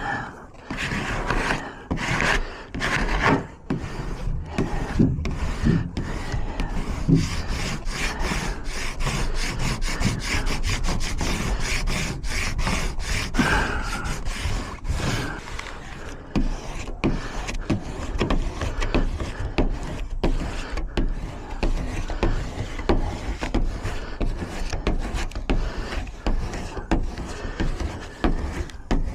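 Quick, repeated rubbing and scraping strokes: vinyl sign lettering being rubbed down onto a van's panel.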